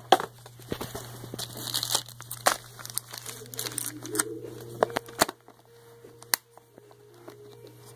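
Handling noise: paper and a plastic crayon case rustling and crinkling as they are moved about, with several sharp plastic clicks and knocks. It is busiest in the first half and quieter after about five seconds.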